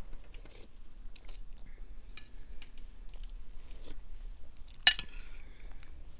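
Close-up sounds of a person chewing and biting bread and a lamb meatball: scattered small wet mouth clicks. About five seconds in comes one sharp clink of cutlery, the loudest sound.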